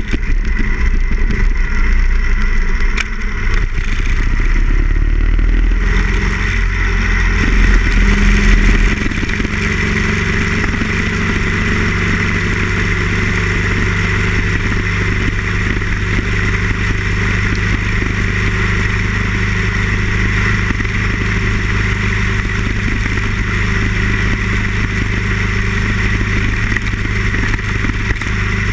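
Harley-Davidson Ironhead Sportster XL1000 air-cooled V-twin running under way on the road, heard from the bike itself. The engine note shifts about eight or nine seconds in, then holds steady.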